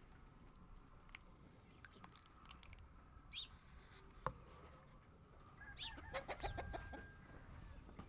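Quiet farmyard background with chickens clucking and a few bird chirps, with a quick run of clucks about six seconds in. A single sharp click about halfway through.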